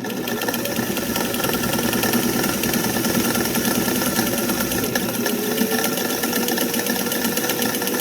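Singer 404 straight-stitch sewing machine starting up and running steadily at speed, its motor and needle mechanism going with a fast, even rhythm as it sews.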